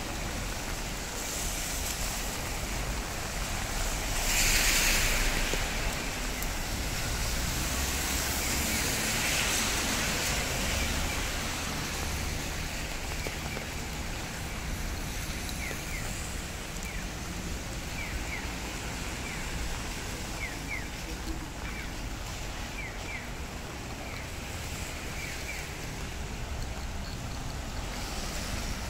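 Rainy city-street ambience: a steady hiss of rain and wet traffic, with a vehicle swishing past on the wet road about four seconds in. Short high chirps repeat through the second half.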